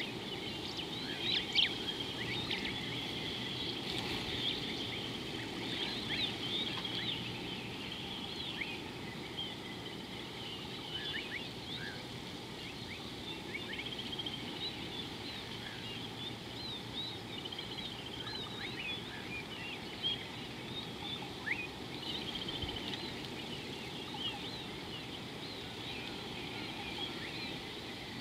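A chorus of many birds chirping and calling continuously, with short quick notes overlapping, over a steady low background hum.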